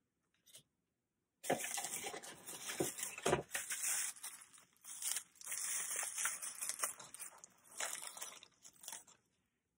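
Plastic bubble wrap crinkling and crackling in irregular bursts as a bubble-wrapped parcel is handled and set down, with a few sharper snaps in the first couple of seconds.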